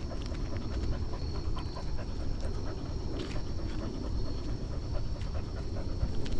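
A husky panting steadily while on the move, heard up close, with a low jostling rumble and light clicks throughout.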